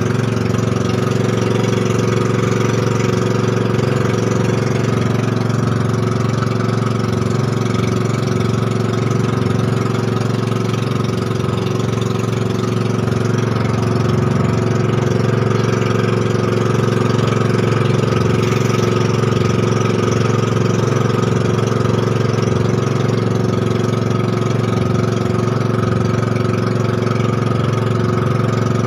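Engine of a motorized outrigger boat (bangka) running steadily while under way, a constant drone with a little water rush from the hull.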